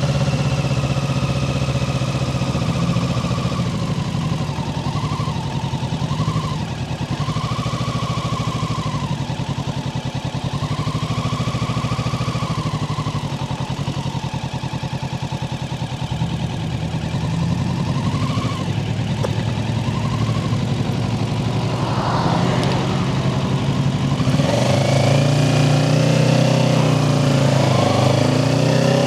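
Kawasaki Ninja 650's parallel-twin engine running at a steady speed, then near the end its note rises and wavers as it revs up.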